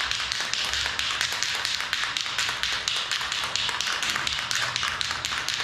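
Aerosol spray paint can hissing in one long continuous spray, with a fast crackling flutter running through it.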